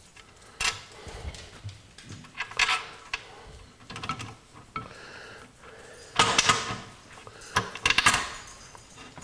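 Metal parts and hand tools clinking and knocking against the DeWalt 788 scroll saw as its case halves are fastened back together, in scattered taps with a louder flurry about six seconds in and another near eight seconds.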